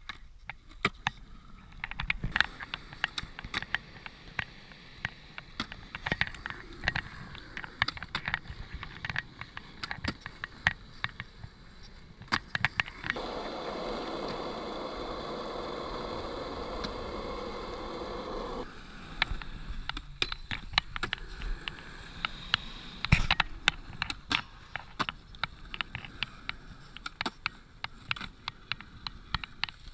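Skateboard wheels rolling on smooth concrete, with many sharp clacks and knocks of the board and trucks hitting the ground and ledges. A steadier, louder stretch of wheel roll lasts about five seconds in the middle.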